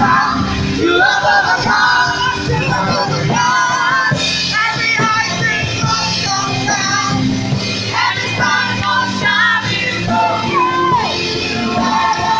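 A gospel choir singing an upbeat praise medley into microphones, with loud voices and some shouted lines, over keyboard and electric guitar.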